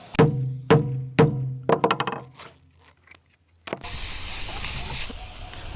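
A short music sting of four punchy, pitched low hits about half a second apart, ending in a quick flurry of notes. After about a second of near silence, a steady hiss starts and runs for about two seconds.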